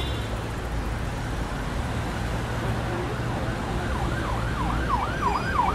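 Steady low road-traffic rumble, and from about four seconds in an emergency vehicle siren wailing in fast up-and-down sweeps, about three a second.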